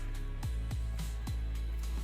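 Background music with a steady bass and a regular drum beat.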